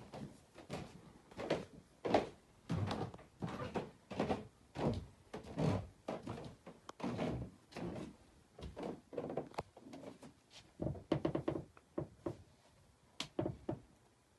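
Footsteps thudding up carpeted stairs and across a carpeted room, an irregular run of dull thumps, one or two a second, in a small room.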